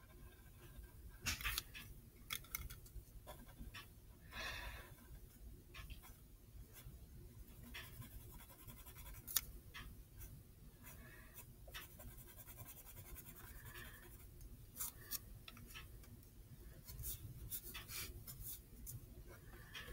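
Pencil scratching on paper in short, irregular strokes while sketching.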